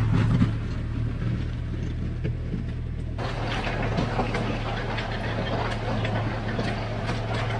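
Engine of a heavy earthmoving machine running steadily at a low speed. From about three seconds in, a scatter of clicks and rattles joins it.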